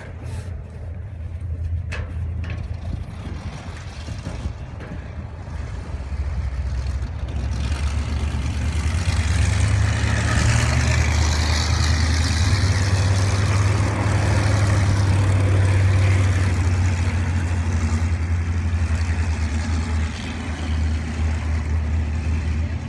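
Winged sprint car's V8 engine running steadily as the car laps a dirt oval, growing louder as it comes closest about halfway through, then easing off a little near the end.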